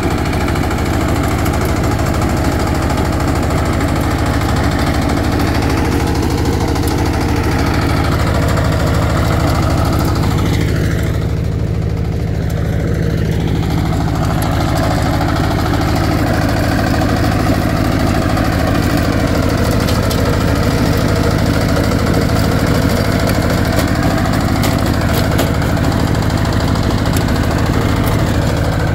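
Walk-behind two-wheel power tiller's single-cylinder diesel engine running steadily under load while its rear rotary tiller churns through the soil.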